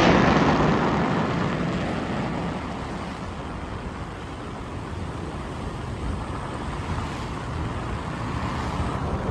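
Road noise from a car driving on a wet road: a steady rush of tyres and wind, loudest at the start, easing off and building slightly again near the end.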